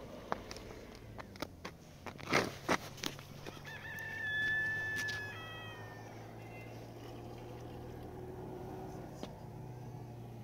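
A rooster crows once, a call of about two seconds in the middle, over a steady low machine hum. A few sharp knocks come in the first few seconds.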